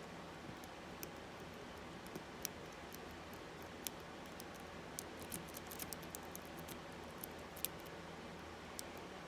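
Faint, irregular metallic clicks and ticks of a worm rake pick scraping and jiggling in the keyway of an Abus 64TI 30 mm padlock, with the pins clicking as it is raked.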